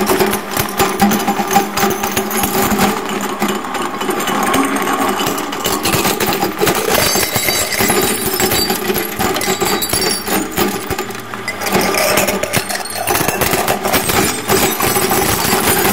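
Twin-shaft shredder's interlocking steel cutters crushing a glass bottle: a continuous crackle and crunch of breaking glass over the steady running of the machine.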